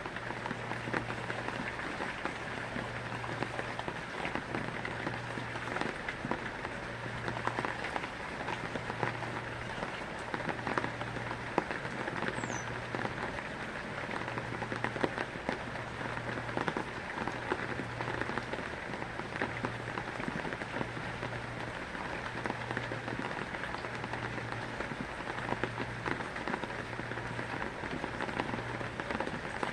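Heavy rain falling and pattering steadily on a surface, dense with fine drop clicks. A low hum cuts in and out every second or two underneath it.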